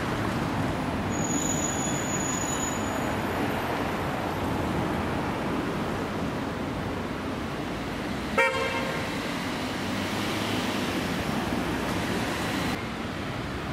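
Steady city street traffic noise, with one short vehicle horn toot about eight seconds in.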